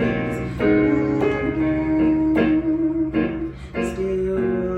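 Music: an instrumental passage of a worship song, led by guitar, with sustained notes and changing chords.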